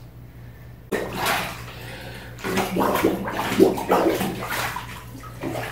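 Bathwater sloshing and splashing in a tub as a kneeling swimmer in goggles dunks his face into the water, starting about a second in and going on in irregular surges.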